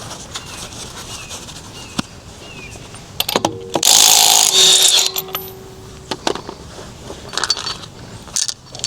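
Cordless impact wrench running in one loud burst of about a second and a half, about four seconds in, with scattered clicks and clinks of metal tools and parts before and after.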